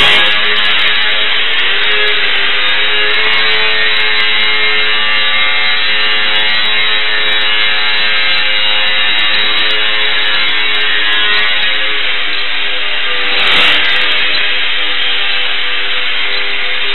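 E-Flite UMX Extra 300 ultra-micro RC plane's electric motor and propeller buzzing steadily, its pitch wavering slightly with the throttle. A brief louder rush comes at the start, as the plane passes close, and again about three-quarters of the way through.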